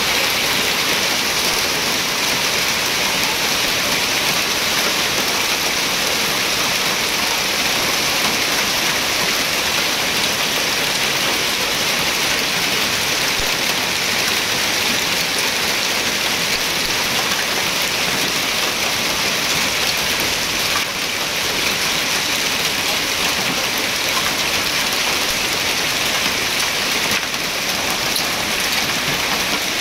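Heavy rain mixed with hail pelting a street and parked cars: a steady, dense hiss.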